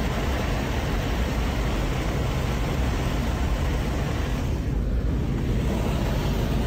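Air blasting into an airliner cabin through an emergency exit door opened in flight: a loud, steady rush of wind noise. Its hiss briefly dulls about five seconds in.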